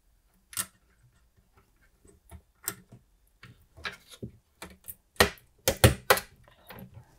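Ferranti ULA, a 40-pin chip, being lined up and pressed into its socket on a ZX Spectrum 128K board: a run of irregular small clicks and taps as the pins seat, loudest and closest together about five to six seconds in.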